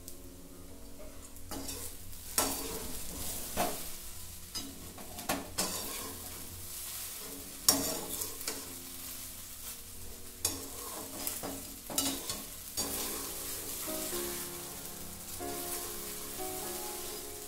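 Metal slotted spatula scraping and turning sabudana khichdi in a metal kadhai, with repeated scrapes and clinks against the pan over the steady sizzle of the food frying on the gas flame.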